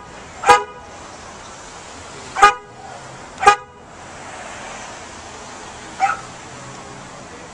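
Car horn, pressed by a dog, sounding three short, loud honks about half a second, two and a half and three and a half seconds in. A single dog bark follows about six seconds in.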